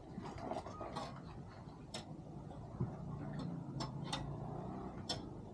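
Scattered sharp snaps and clicks, several seconds apart and irregular, from twigs, branches and plastic rubbish being pulled and broken out of a clogged culvert by hand.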